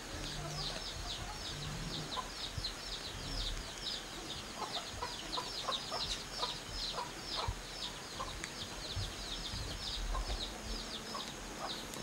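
Chickens: a steady run of high, falling peeps, about four a second, with lower clucks now and then.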